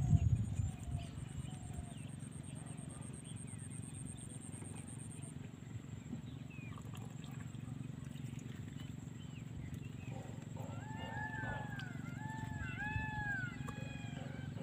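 An animal calling in a quick run of short notes that each rise and fall, starting about two-thirds of the way through, over a steady low background hum.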